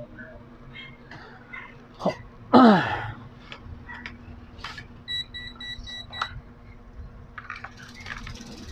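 Small clicks and taps of parts being handled on a metal workbench, with a loud short vocal sound from a person that falls in pitch about two and a half seconds in. About five seconds in, a quick run of about six high electronic beeps.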